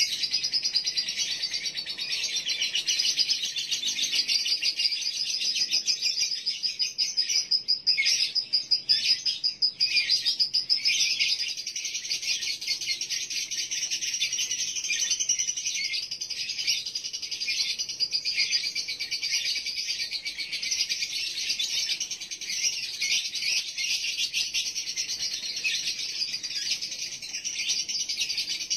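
Male lovebird's 'konslet' song: a fast, unbroken, high-pitched chattering twitter, the call of a male in breeding condition. It is a little louder and choppier from about seven to eleven seconds in.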